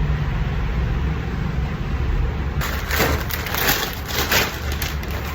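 Plastic packaging crinkling and rustling as it is handled and opened, starting about two and a half seconds in, over a steady low hum.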